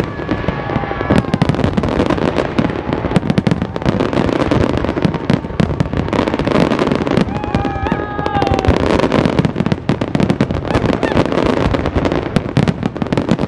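Aerial fireworks shells bursting in rapid succession: a continuous barrage of bangs and crackle with no let-up.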